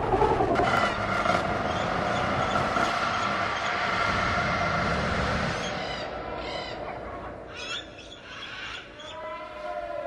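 A steady rushing roar with a few held tones runs for about six seconds and then fades, giving way to a flock of birds calling: repeated short cries that bend up and down in pitch.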